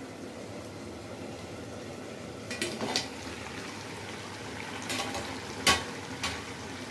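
Brinjal curry simmering in an iron kadhai on a gas flame, a steady bubbling hiss. A few sharp metallic clinks come about two and a half to six and a half seconds in, as the metal plate covering the pot is handled.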